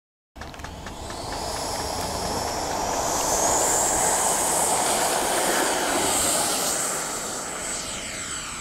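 Radio-controlled F-15 model jet's electric ducted fans running: a high steady whine over rushing air, cutting in abruptly just after the start, loudest in the middle and fading over the last couple of seconds.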